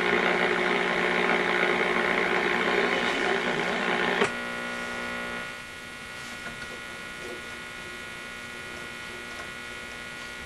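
Hallicrafters S38E shortwave receiver's speaker giving static and hiss with steady whistles while tuned between stations. About four seconds in there is a sharp click, after which the noise drops and a quieter hum with steady whistling tones remains.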